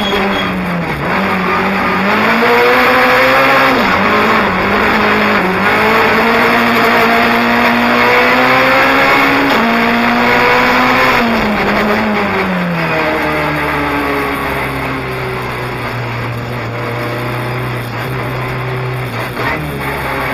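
Rally car engine heard from inside the cabin, revving up and dropping back again and again as the car is driven hard. About two-thirds of the way through it falls away to a steady low run.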